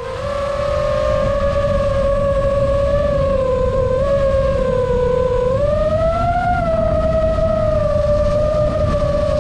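FPV quadcopter's motors and propellers whining steadily, the pitch sagging a little and then rising about halfway through before settling, over a low rumble of wind on the onboard microphone.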